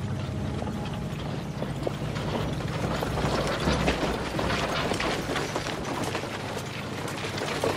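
Dense, irregular rattling and clicking, over a low held music tone that fades out about halfway through.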